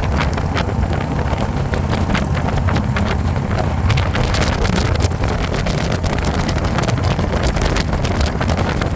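Harley-Davidson motorcycle running steadily at cruising speed, a constant low engine rumble mixed with wind buffeting on the microphone.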